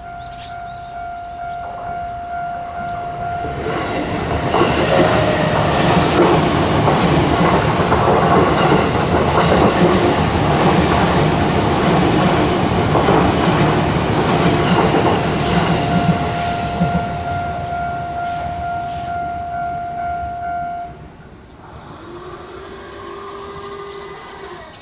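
A railway level-crossing alarm rings steadily while a train passes over the crossing, its wheels clacking over the rail joints. The train noise builds over the first few seconds, stays loud for about ten seconds, then fades, and the alarm stops about 21 seconds in.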